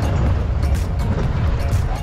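Background music with a steady beat, laid over the low rumble of a safari jeep driving.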